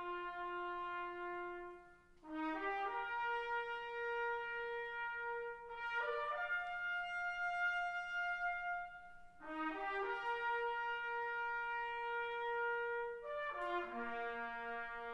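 Solo brass instrument playing a slow melody of long held notes, in phrases with short breaths between them.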